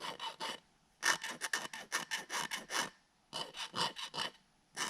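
Sandpaper rubbing over a 3D-printed plastic figure in quick back-and-forth strokes, about five a second, in bursts of around a second with short pauses between them. The surface has been sanded smooth, its bumps and roughness gone.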